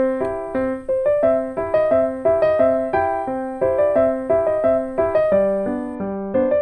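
Background music: a gentle piano melody of plucked-sounding notes in a steady, even rhythm.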